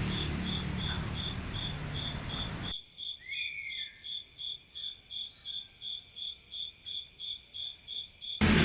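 An insect calling in evenly spaced, high-pitched pulses, about two to three a second. A steady background hiss drops away about three seconds in and returns near the end.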